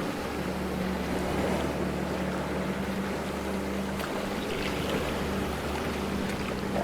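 Ocean waves washing steadily, with a continuous low hum underneath.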